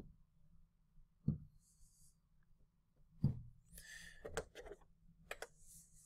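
Faint taps and knocks on an interactive whiteboard as on-screen menus and tools are touched. There is a soft knock about a second in and another two seconds later, then a few sharper clicks with short rustles near the end.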